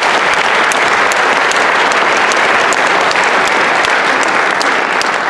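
An audience applauding: a dense, steady wash of many people clapping at once.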